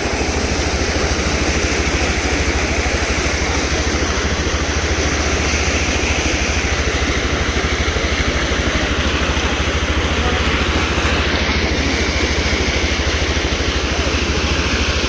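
Motorcycle engine running steadily, with an even rushing noise over it.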